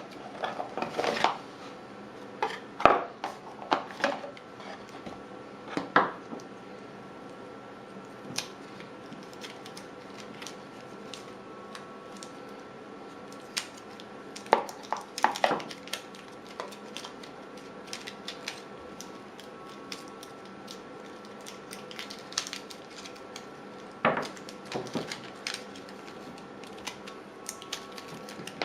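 Scattered clicks, taps and light knocks of small hard objects and packaging being handled, over a faint steady hum. The clicks bunch together near the start, around the middle and near the end, with quieter stretches between.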